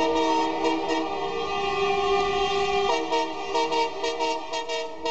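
Diesel locomotive horn, from a WDM-3D, sounding one long, steady blast of several tones held together. The chord steps to a different pitch about three seconds in.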